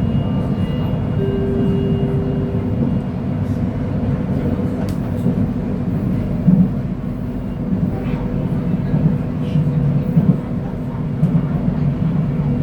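KTM Komuter electric multiple unit running along the line: a steady low rumble with a thin, even hum above it.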